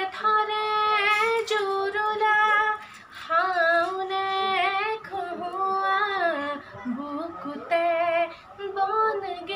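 A young woman singing a song unaccompanied, in long held notes that bend and slide in pitch, with short pauses between phrases about three and seven seconds in.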